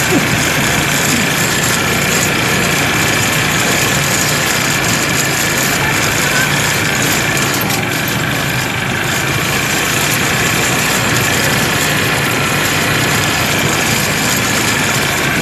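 Several ATV (quad bike) engines running steadily as the ATVs drive along a dirt track, heard from one of the moving ATVs, with a steady rushing noise over the engines.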